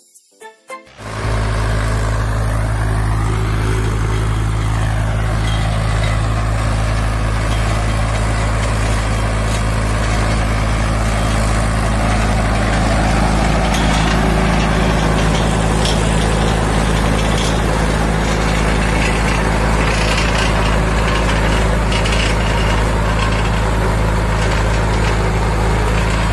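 A tractor engine runs steadily, driving a Mahindra Super Seeder working through rice stubble. The sound starts about a second in.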